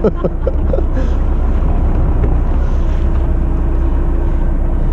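Fishing boat's engine running with a steady low drone and a faint steady hum, with a few short clicks and knocks in the first second.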